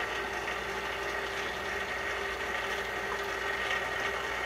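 KitchenAid Artisan stand mixer running with its dough hook: a steady motor hum with a high whine.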